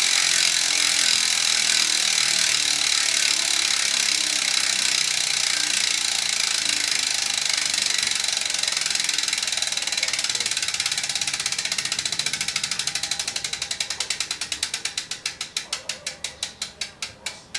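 Koozer XM470 rear hub's 28-tooth ratchet freehub clicking as the wheel freewheels: a fast continuous buzz that slows steadily and grows quieter, breaking into separate clicks, about five a second near the end, as the wheel spins down.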